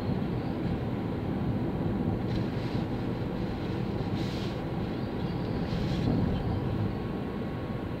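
Steady road noise heard from inside a car driving on a wet road: a low rumble of engine and tyres, with a few short hisses.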